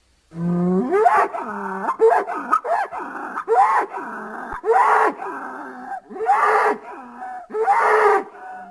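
Creature sound effect built from bull recordings: after a brief silence, a quick run of short, pitched bellowing calls, each bending up and down in pitch.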